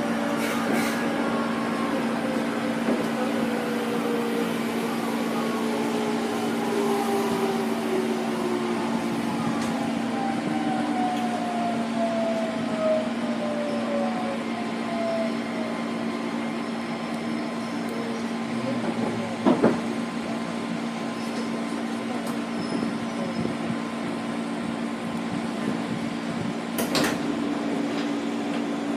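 205 series 5000-subseries EMU's VVVF inverter whine falling in pitch as the train brakes into the station, over a steady electrical hum. A short sharp sound comes as it stops about two-thirds of the way through, and another brief burst near the end as the doors open.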